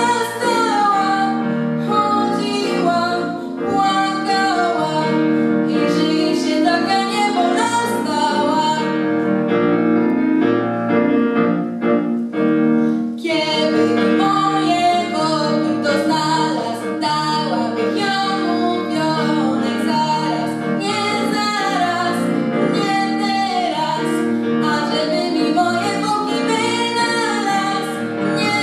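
A girl singing a song into a microphone, with instrumental accompaniment underneath.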